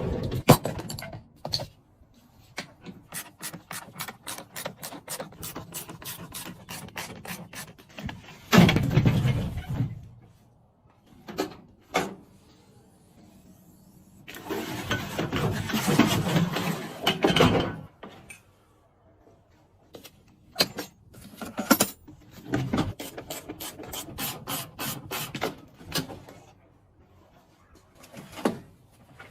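Hand work on parts: runs of quick clicks and ticks, about four a second, with two longer stretches of scraping or scrubbing, the first the loudest.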